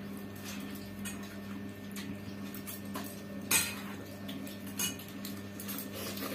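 Stainless steel plates and bowls clinking and scraping lightly as people eat with their hands, with two sharper clinks about three and a half and five seconds in, over a steady low hum.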